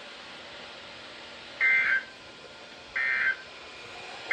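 Emergency Alert System end-of-message data bursts: short two-tone digital warbling bursts about a second and a half apart, two of them plus the start of a third at the end, over a steady hiss. They signal the end of the broadcast warning.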